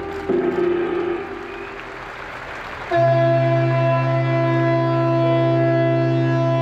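A large hanging gong is struck with a mallet and rings, fading over about a second. About three seconds in, a ship's horn starts one loud, steady blast of several notes at once, held without a break.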